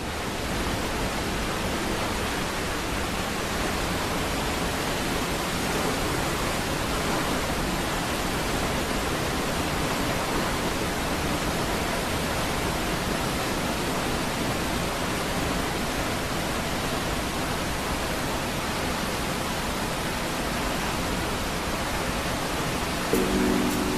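Steady, even rush of water pouring over the dam of a small river hydro power plant. Music comes in near the end.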